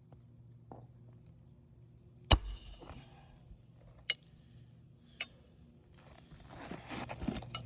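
Hammer driving roofing nails into asphalt shingles: three separate sharp metallic strikes, the first the loudest. A rustling noise builds near the end.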